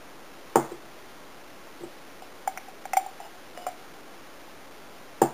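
Sharp knocks and light clinks on a stainless steel mixing bowl as risen yeast mixture is added to flour and worked in by hand. There is one knock about half a second in, a few smaller ringing taps around the middle, and a loud knock near the end.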